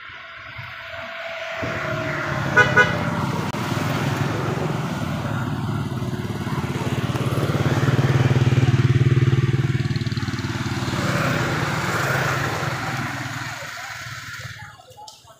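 A motor vehicle's engine passing by, growing louder to a peak around the middle and then fading away, with two quick horn beeps about two and a half seconds in.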